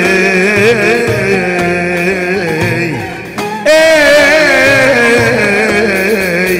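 Live Middle Eastern-style music played on an electronic arranger keyboard: a steady drum beat under a wavering, ornamented melody line. Near the middle it dips briefly, then a loud held note with a wide vibrato comes in.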